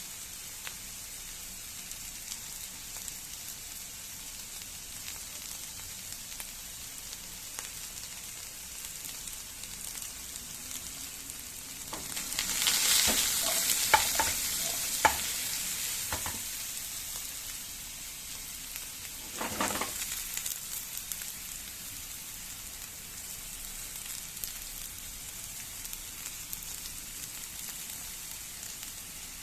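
Food sizzling in olive oil in a hot pan, a steady high hiss. Around the middle the sizzling surges louder for a few seconds with several sharp knocks of a utensil against the pan, and there is another brief surge a few seconds later.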